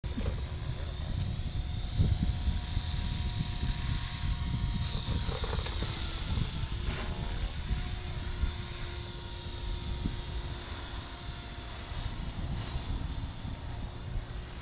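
Radio-controlled model helicopter flying, giving a steady high-pitched whine that dips briefly in pitch about six seconds in and then recovers, over a low rumble.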